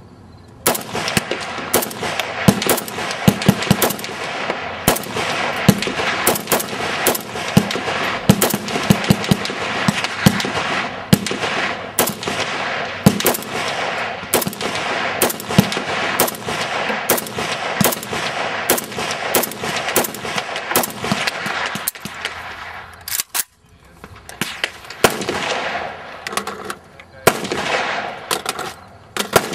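Rifle fire at a shooting range: sharp shots in quick succession, several a second and sometimes overlapping, with one brief lull about three quarters of the way through before the firing resumes.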